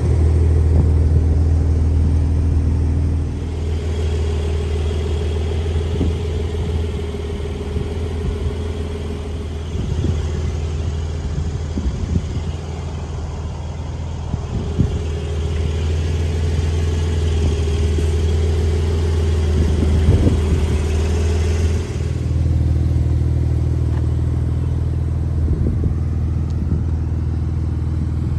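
2021 Porsche 911 Turbo S's twin-turbo flat-six idling steadily with a low hum. It is louder at the start, drops a few seconds in, and comes back up about 22 seconds in, with faint scattered clicks.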